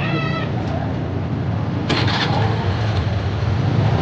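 A motor vehicle engine running with a steady low rumble. There is a short high tone of several even pitches at the very start, and a brief sharp burst of noise about two seconds in.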